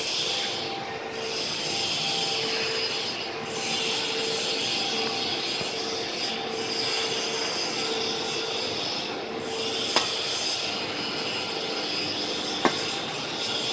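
Plastic film squeezer (screw-press dewatering machine) and its inclined belt conveyor running: a steady mechanical noise with a constant hum under it. Two sharp clicks, one about ten seconds in and one near the end.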